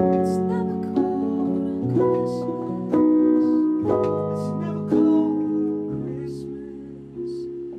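Music: piano or keyboard chords, a new chord struck about once a second, fading over the last couple of seconds.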